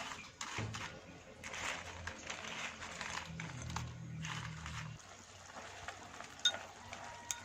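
Kitchen handling sounds as a pot is put on the stove: rustling, a low hum for a few seconds, and two light clicks near the end.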